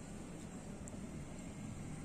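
Steady low rumble and hiss of lit Bunsen burner flames, with a couple of faint light ticks.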